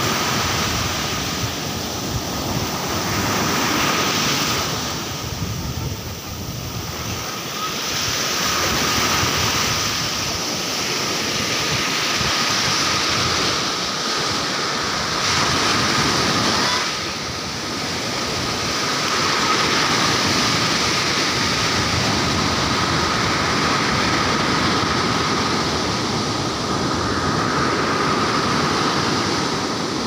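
Surf breaking and washing up a sandy beach, a steady rush of foaming water that swells and ebbs as each wave comes in.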